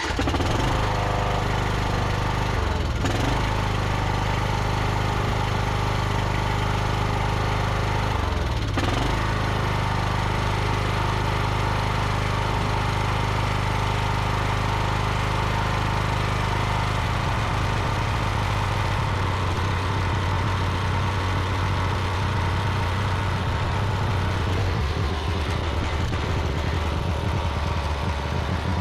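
Ride-on lawn mower's engine running steadily just after starting, with two brief dips in engine speed about three and eight seconds in.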